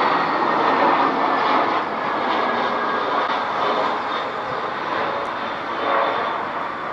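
Airbus A320neo's turbofan engines on final approach just before touchdown: a steady jet rush with faint high whining tones, slowly fading toward the end.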